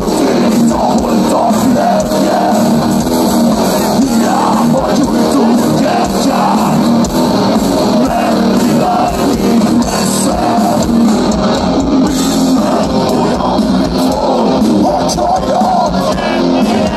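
Loud live heavy metal from a band: electric guitars and drums playing, with a singer's voice over them, heard through the outdoor PA from among the audience.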